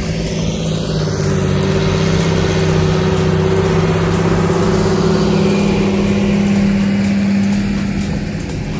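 John Deere 8430 tractor's six-cylinder diesel running steadily under load as it pulls a Horsch Joker disc harrow past, with the harrow's discs cutting through the soil. It grows louder through the middle and eases off near the end.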